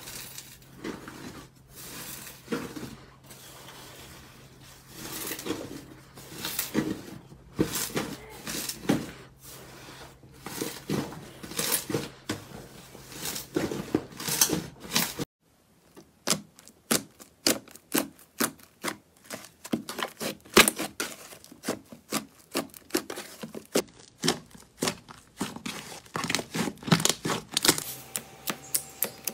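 Hands kneading, squeezing and pulling apart a large blob of dried-out blue cotton slime, with irregular squishing, tearing and crackling. After a cut about halfway through, slime is pressed with the fingers in a rapid run of sharp clicking pops, several a second.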